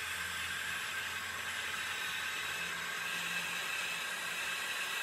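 Electric heat gun running with a steady blowing whir, heating a heat-shrink butt connector to shrink it onto the wire.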